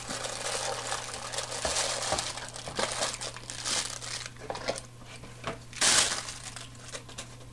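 Thin clear plastic bag crinkling and rustling in the hands as a camera lens is lifted out and unwrapped from it, in irregular crackles with the loudest rustle about six seconds in.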